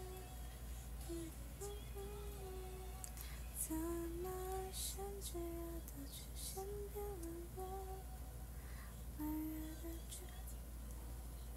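A woman softly humming a slow tune, note by note, with a few faint clicks around the middle and again near the end.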